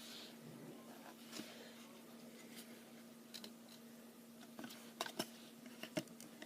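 Faint clicks and light rustling of trading cards being handled and flipped through by hand, a few separate ticks near the middle and end, over a steady low hum.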